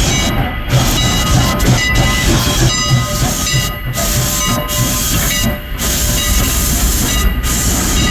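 Steam locomotive No. 89 hissing steam at the station, the hiss dropping out briefly several times over a low rumbling beat.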